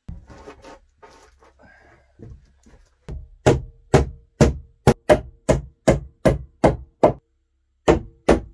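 Hammer striking wooden floor planks: a run of about a dozen sharp, evenly paced blows, two to three a second with a brief pause, after a few quieter knocks and clatter.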